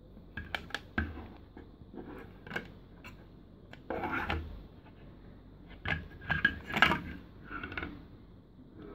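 Hard plastic parts of a homemade toy transformation belt clicking, knocking and rubbing together as they are handled, in irregular clatters with the loudest cluster about six to seven seconds in.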